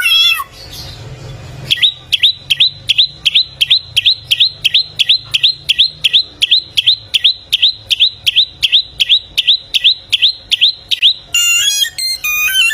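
Male bare-throated whistler (samyong) singing: a long run of identical short, high, downslurred notes at about three or four a second, breaking near the end into a quick jumble of varied notes.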